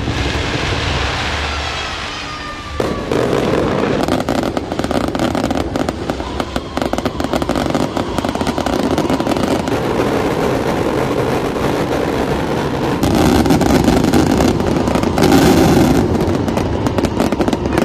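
Aerial fireworks display: whistles falling in pitch for the first few seconds, then a dense run of rapid bangs and crackling that is loudest about 13 to 16 seconds in.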